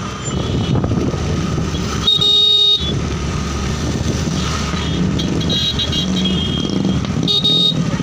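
Motor scooter engine running steadily under way on a wet road, with a vehicle horn sounding: one long blast about two seconds in, the loudest sound here, and two shorter ones later on.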